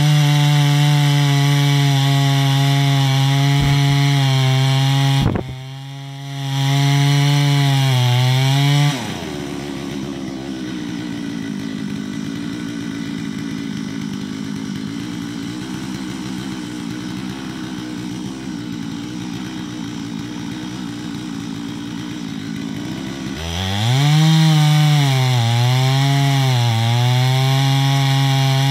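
Stihl MS 660 two-stroke chainsaw with a 42-inch bar running at full throttle in an oak cut, dipping briefly about five seconds in. About nine seconds in it drops to idle as it sits in the cut. Near the end it revs back up and cuts again, its pitch wavering up and down under load.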